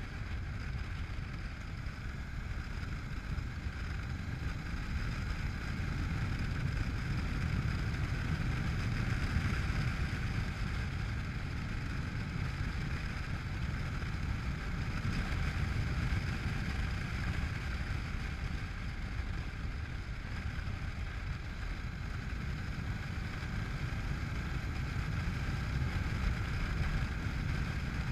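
Honda NC700X motorcycle's parallel-twin engine running at a steady road speed, with wind rushing over the camera; the level swells and eases slightly as the rider works through the bends.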